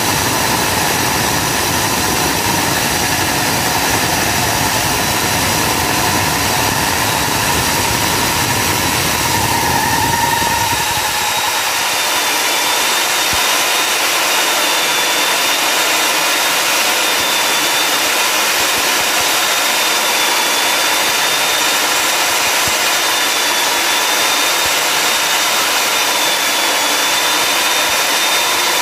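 Stand-mounted electric diamond core drill running steadily, a high motor whine over grinding as its water-fed bit cuts into a tiled floor. The low rumble drops away about a third of the way in.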